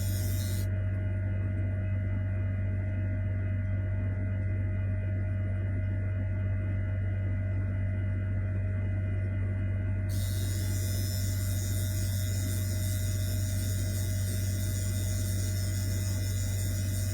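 A 2-in-1 hair dryer running steadily with a strong low hum. The high hiss drops away from about a second in until about ten seconds in.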